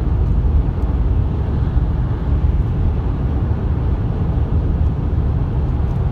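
Road noise inside a car's cabin at motorway speed: a steady low rumble from tyres, wind and engine, unchanging throughout.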